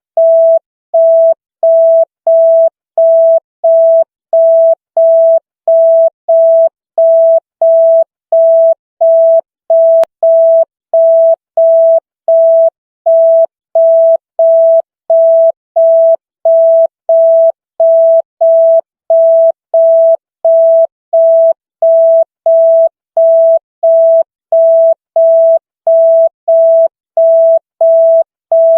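An electronic beep: one mid-pitched tone pulsing on and off evenly, about one and a half beeps a second, in the pattern of a telephone busy tone.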